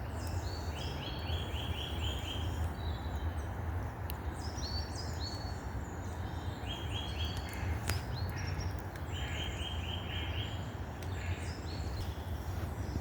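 Several woodland songbirds singing at once; one repeats a quick run of five or six short, even notes a few times, while others call higher. A steady low rumble runs underneath.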